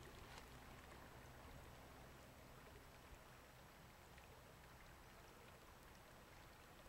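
Near silence: a faint steady low rumble of outdoor background noise, with one faint click about three seconds in.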